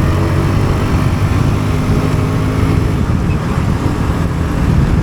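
Bajaj Pulsar NS160's single-cylinder engine running at a fairly steady pace while riding, with wind and road noise on the microphone.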